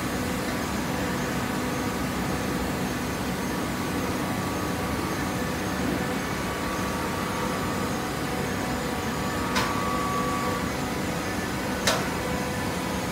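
Automatic horizontal hydraulic baler running: a steady mechanical hum from its motor and hydraulic pump, with two sharp clanks a couple of seconds apart near the end.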